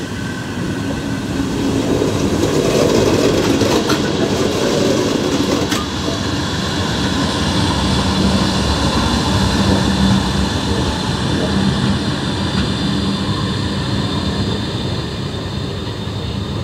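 A train running close by, a steady rumble that swells over the first two seconds, with a low hum coming in about eight seconds in and fading a few seconds before the end.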